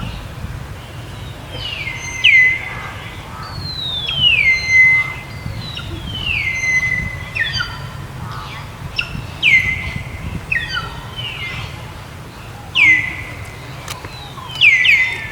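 High whistled animal calls, each gliding down in pitch and levelling off at the end, repeated about every one to two seconds.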